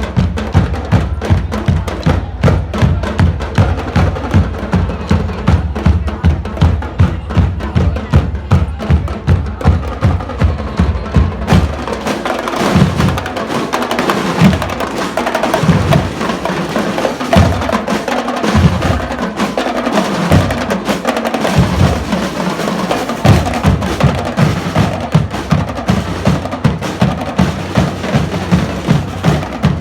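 High school drum and lyre band playing: drums keep a steady, even beat, and partway through this gives way for a while to spaced heavy drum hits under a fuller sound before the steady beat returns.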